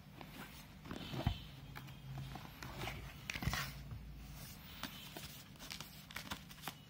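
Cardboard box being opened and its plastic packaging handled: irregular rustling, crinkling and light knocks, the loudest about a second in and again midway.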